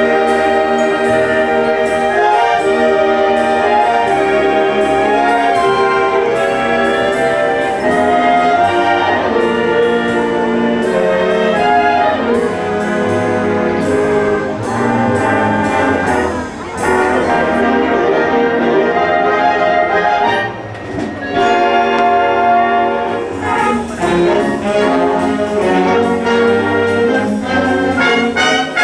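A live band led by trumpets and trombones plays an instrumental passage over a steady cymbal beat, with two short breaks in the second half.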